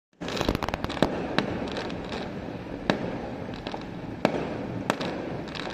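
Aerial fireworks going off: a quick cluster of sharp bangs about half a second in, then single bangs roughly every second, over a continuous background din.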